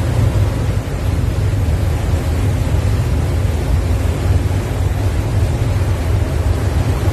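Steady, loud deep rumble on the open deck of a moving ferry: wind buffeting the phone's microphone over the drone of the ferry's engines and wake.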